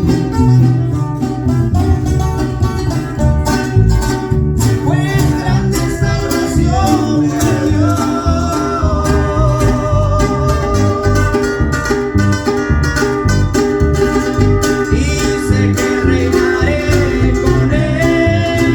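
A small string band of bajo quinto, requinto guitar and bass playing a Spanish-language Christian song, with a voice singing the melody from about five seconds in.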